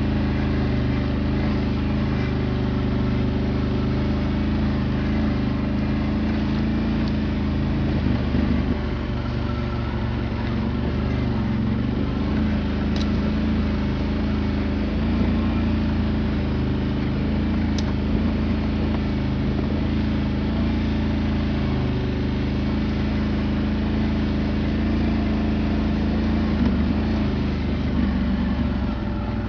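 Quad bike (ATV) engine running at fairly steady revs while riding a rough dirt track, its pitch shifting a little now and then.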